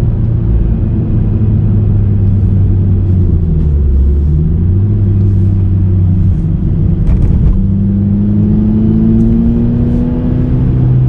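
Suzuki Swift Sport ZC33S's 1.4-litre turbocharged four-cylinder engine pulling uphill, heard from inside the cabin. Its note dips and picks up again about four seconds in, then rises steadily over the last few seconds as the car accelerates.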